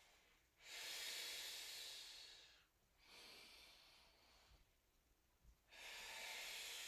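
A woman's slow, soft breaths, three in a row, the first the longest and loudest.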